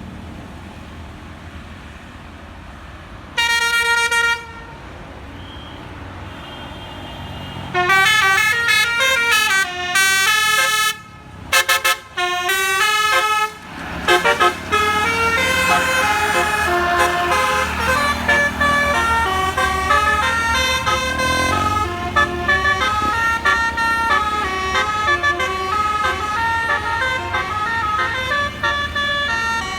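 Bus "telolet" basuri musical air horn: one held note about three seconds in, then from about eight seconds on a long melodic run of stepping notes, broken by short pauses, over a low engine rumble.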